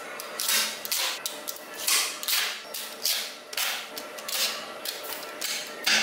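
Small magnetic balls clicking and rattling in short, irregular bursts, about one or two a second, as layers of a magnetic-ball slab are slid apart with a plastic card and snapped back into place.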